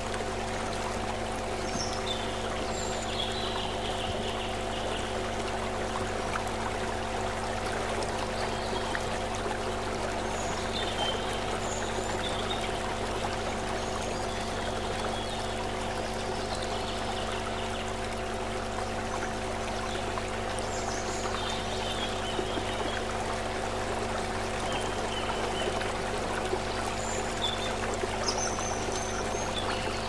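Shallow stream water running and splashing over stones, a steady rush. Underneath is a steady hum of several held low tones, and faint high chirps come now and then.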